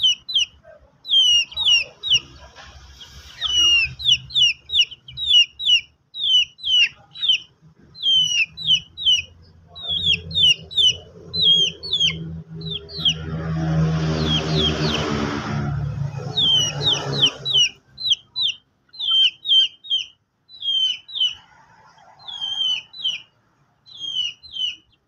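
Chicks peeping: short, high, downward-sliding peeps repeated two or three times a second. About halfway through, an adult chicken gives a longer, harsh call lasting a few seconds.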